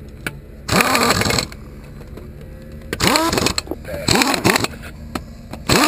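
A small motor hums steadily, with a loud noisy burst about a second in and short shouts of voices near the middle and end.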